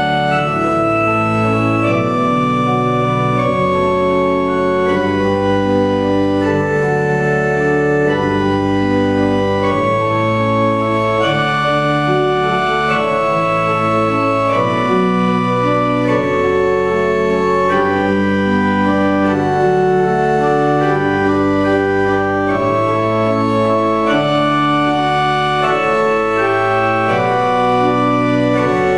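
Organ playing slow, held chords that change about every second, at a steady volume.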